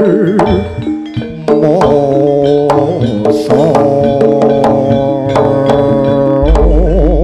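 Live Javanese jaranan gamelan music: drum strokes over sustained pitched tones, with a wavering melody line that has a strong vibrato at the start and again near the end. A deep low boom comes in near the end.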